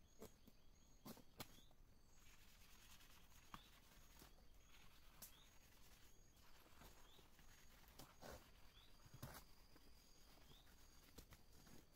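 Near silence: faint scattered knocks and scuffs from men handling blocks of coagulated rubber latex, with a short high rising chirp repeating every couple of seconds.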